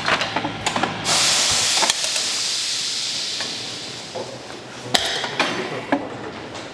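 A loud hiss that starts suddenly about a second in and slowly fades, with a few sharp clicks and knocks.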